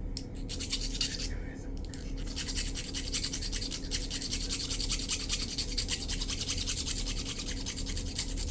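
Small hand file scraping the tops of the pins in a Kwikset lock cylinder's plug, smoothing them flush so the plug will slide back into its housing. A few separate strokes, then quick steady filing from about two seconds in.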